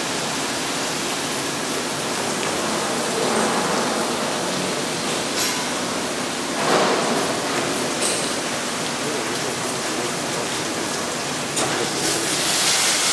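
Sino Star C7 gantry brush car wash machine working over a car: a steady rushing of water and spinning brushes. It swells briefly about seven seconds in and turns hissier near the end.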